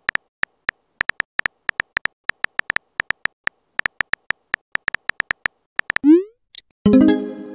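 Phone keyboard typing sound effects: a rapid, irregular run of short clicks, about five a second, each with a faint high beep, as a text message is typed. About six seconds in, a short rising whoosh plays, then a brief tone chord near the end.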